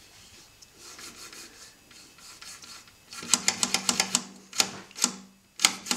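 Crossfader of a two-channel DJ mixer slid back and forth by hand. Soft rubbing for the first few seconds, then a quick run of sharp clicks as the fader is flicked rapidly against its end stops, with a low hum under the clicks.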